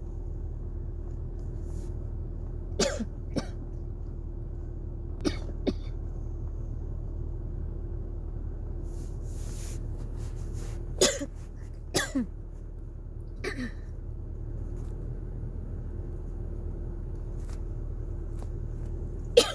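Dry coughs from a person with cough-variant asthma, set off by cold, dry air and dusty heater vents: about five bursts of one or two sharp, hacking coughs every few seconds. A steady low hum runs underneath.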